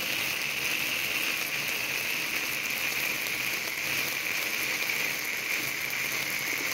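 Birthday fountain sparkler candle burning, giving off a steady hiss of sparks.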